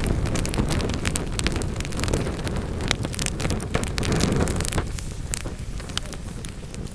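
Wood fire burning in a fireplace: logs crackling and popping in quick irregular snaps over a low rushing rumble of flames. The rumble eases off after about five seconds, and the crackles carry on.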